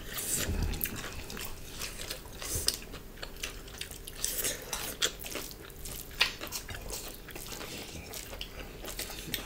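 Eating sounds of two people eating rice and curry with their fingers: chewing and mouth smacks, fingers working food on ceramic plates, with scattered small clicks.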